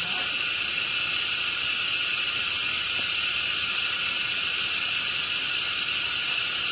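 A steady, high-pitched hiss.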